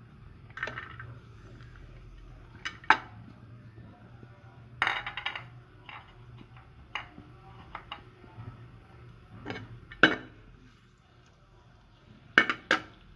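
Metal spatula clinking and scraping against the bottom of an aluminium pot in irregular strokes, as chopped garlic is tipped in and pushed around in the ghee. The loudest clinks come about three seconds and ten seconds in.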